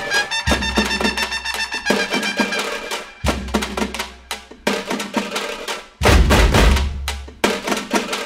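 Background music with a steady drum beat; a heavy bass comes in about six seconds in.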